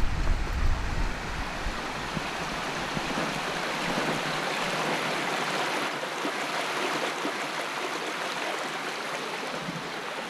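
Steady rushing noise, with a low rumble in the first second or so.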